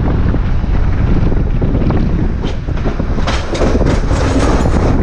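Wind buffeting the microphone over the running noise of a San Francisco cable car ridden on its open outside, with a run of clicks and rattles from about halfway to near the end.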